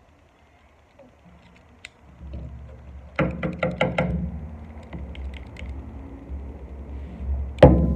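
Sharp knocks of an object being stabbed through slime and striking the hard surface beneath: a quick run of about five knocks, then one louder knock near the end, over low handling rumble.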